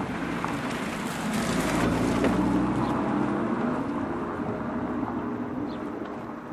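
Audi TT RS Roadster's turbocharged five-cylinder engine and tyres as the car drives past at moderate speed, growing louder to a peak about two seconds in, then fading as it moves away.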